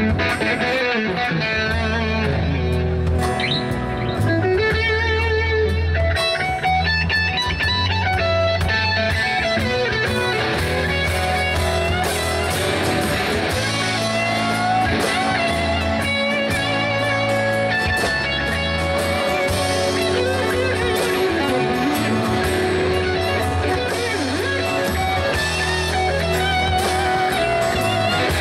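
Live rock band playing an instrumental break: an electric guitar plays a lead line with bends and vibrato over strummed guitars, bass and drums.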